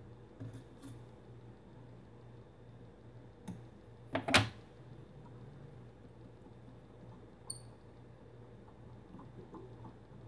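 Small clicks and taps of fly-tying tools being handled as thread is wound onto a hook, with one sharp clack a little past four seconds in and a light metallic ping later on.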